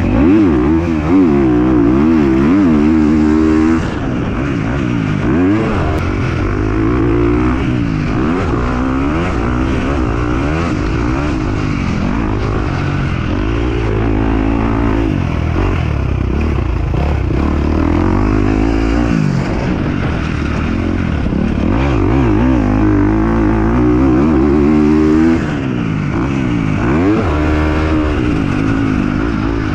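Motorcycle engines revving up and down over and over, as when riding through gears; the revs are loudest and closest near the start and again near the end.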